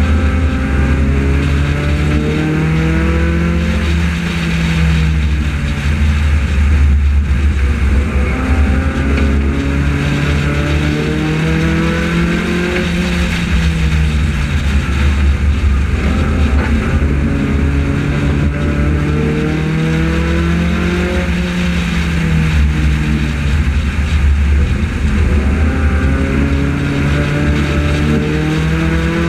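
Onboard sound of a front-wheel-drive Honda-built race car's four-cylinder engine under racing load: the engine note climbs for several seconds as it pulls down a straight, then drops as it eases off into the turn, repeating lap after lap about every eight to nine seconds. A heavy low rumble of road and wind runs underneath.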